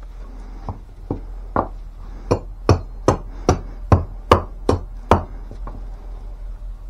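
Camp axe chopping into a stick of very hard wood with short, quick strokes: about a dozen sharp chops, two or three a second, that grow louder about two seconds in.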